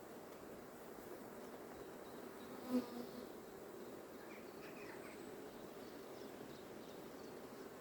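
Honeybees buzzing steadily over an open hive, with a brief knock about three seconds in.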